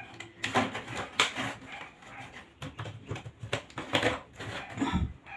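Irregular clicks, scrapes and rustles of a green electrical ground wire being fed into a flexible conduit, with a dull knock near the end.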